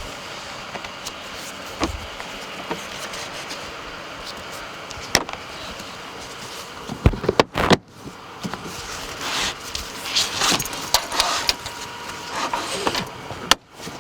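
Plastic car interior trim being handled and pressed into place: scattered sharp clicks and knocks, then a stretch of scraping and rubbing in the second half.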